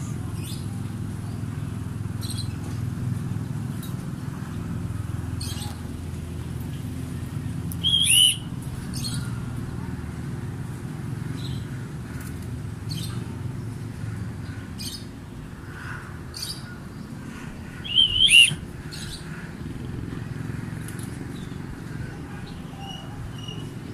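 Birds chirping in short high calls over a steady low background rumble, with two louder, sharper calls about eight and eighteen seconds in.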